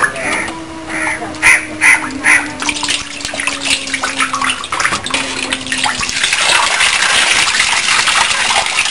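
Water sloshing as raw chicken pieces are rinsed by hand in a steel bucket, turning into a steady rush of water from about six seconds in as the bucket is tipped and drained. A run of short, loud, high calls sounds in the first two and a half seconds.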